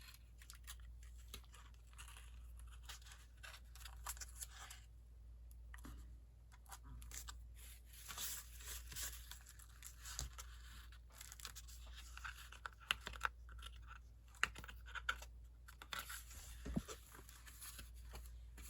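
Paper and card being handled, rubbed and pressed down while the gussets of a journal pocket are glued: soft scratching and rustling with scattered sharp clicks, busier in the second half.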